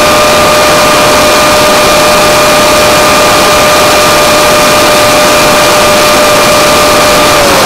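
Onboard audio of a 6S electric Funjet in fast flight: loud wind rush over the camera with the electric motor and propeller whining at a steady high pitch, the whine dropping slightly near the end.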